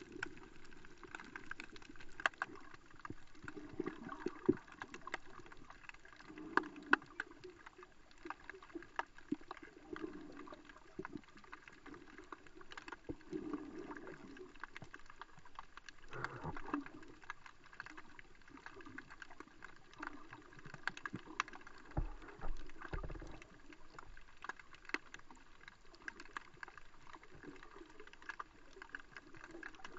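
Underwater sound picked up through a waterproof action-camera housing: a muffled, swelling wash of water with many scattered sharp clicks and crackles.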